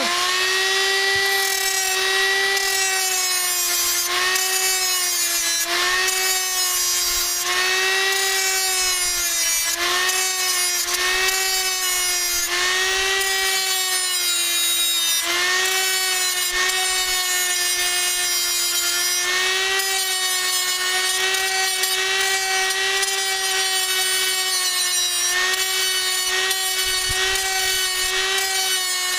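Small 3-inch cut-off grinder running at a steady high whine as it cuts into a rivet head on the swing-set pipe. Its pitch sags briefly and recovers again and again as the wheel is pressed into the metal and eased off.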